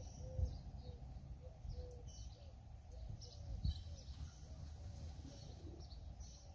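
Small birds chirping and calling, many short notes in quick succession, over a low steady outdoor rumble.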